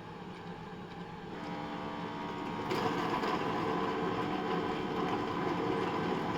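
Ecovacs Deebot T30C docking station washing the robot's mop pads with hot water: a steady motor hum with water. It steps up and grows louder about one and a half seconds in, and again near three seconds in.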